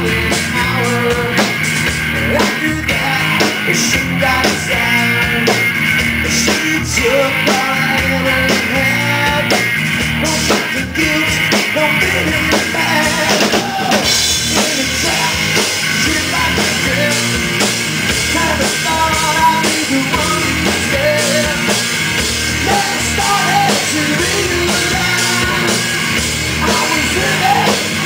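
Live rock band playing a passage without lyrics: drum kit, bass guitar and electric guitar, the guitar carrying a lead line.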